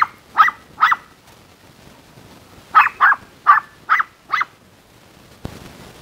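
A small dog yapping in short, high-pitched barks: three in quick succession at the start, then a run of five more about three seconds in.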